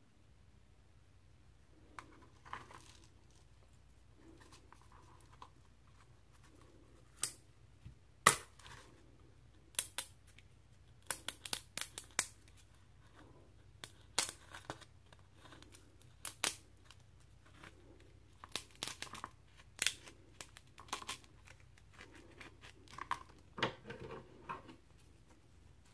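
A turkey feather quill being split and trimmed by hand with a pocket knife and scissors: a scattered run of sharp cracks and snips, with soft tearing of the feather between them. The loudest crack comes about a third of the way in.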